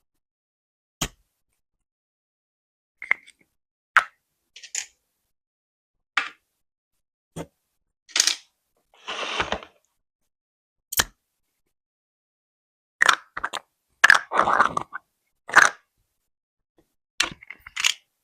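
Slime jars handled and set down on a wooden surface: scattered sharp taps and clicks, with a few longer crackly, squishy sounds about halfway through and again a few seconds before the end, separated by silence.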